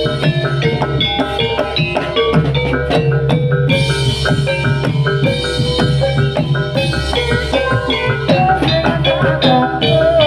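Kendang hand drums played in a traditional Javanese jaranan ensemble, with struck metal gamelan keys ringing pitched notes over a steady, busy rhythm. About eight seconds in, a wavering higher melody line joins.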